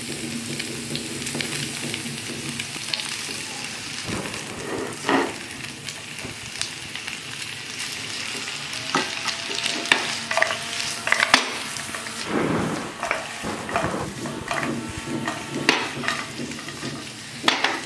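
Chicken lollipops sizzling in a thick sauce in a nonstick frying pan, with a steady hiss under irregular scrapes and knocks of a silicone spatula against the pan as they are stirred and coated. Near the end the pan is shaken to toss them.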